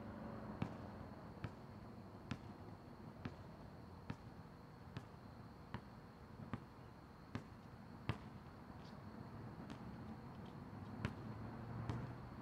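A basketball being dribbled on an outdoor asphalt court: faint, sharp bounces at a steady pace of a little more than one a second, over a steady low hum.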